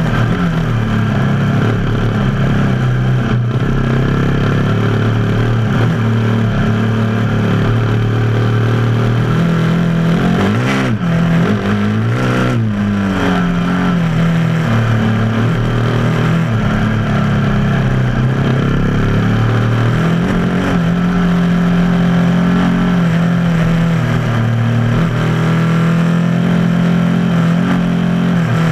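Motorcycle engine running under way on a gravel road. Its note holds steady for stretches and dips and climbs again twice about halfway through as the throttle is eased and reopened, with steady road noise underneath.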